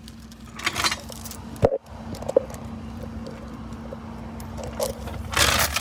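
Steady low hum of an idling vehicle engine, with rustling in dry leaves as someone walks, a couple of sharp clicks, and a louder rustle near the end.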